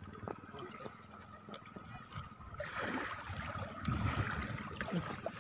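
Shallow sea water splashing and sloshing around hands working a fish out of a gill net, with small splashes and clicks at first. The splashing turns louder about two and a half seconds in and again near four seconds.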